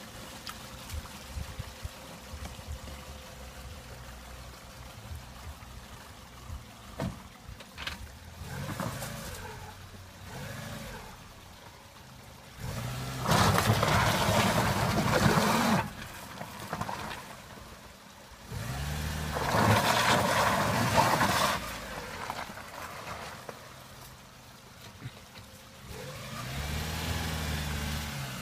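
Lada 21099's four-cylinder petrol engine idling, then revved hard twice for a few seconds each, about halfway through and again a few seconds later, as the car pulls through mud and over rocks. The engine picks up again near the end.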